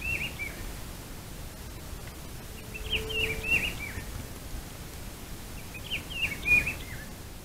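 A small songbird repeats a short phrase of quick, falling, warbled notes three times, about three seconds apart, over a steady background hiss.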